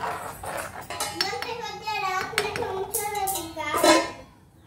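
A steel ladle scrapes in a clay curry pot, then a steel lid clatters down onto the pot near the end. A child's voice sings or chatters over it.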